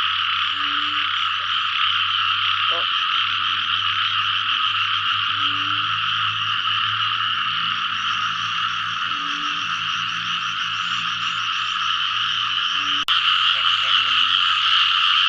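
A dense chorus of frogs calling without pause, with occasional lower single croaks standing out. There is a momentary break about thirteen seconds in.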